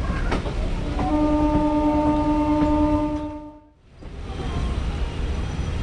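Electric multiple unit (EMU) train's horn sounding one long steady blast of about two and a half seconds over the rumble of the train running at speed. Just after the horn stops the sound briefly drops away almost to nothing, then the running rumble returns.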